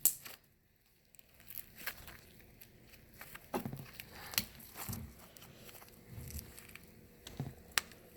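Clear glue slime mixed with pom-poms being squished and stretched by hand, giving faint, irregular sticky pops and crackles.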